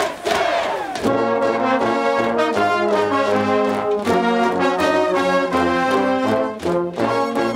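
Marching brass band of a cheering section playing a rhythmic cheer tune in loud unison, trumpets and low brass together; it comes in about a second in, right after a crowd's shouted chant ends.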